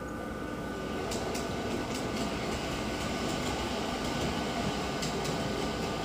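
Accucraft large-scale Pennsylvania K4 4-6-2 model locomotive running along floor-laid track toward the microphone: a steady mechanical whir with light clicks from about a second in, growing slightly louder as it approaches.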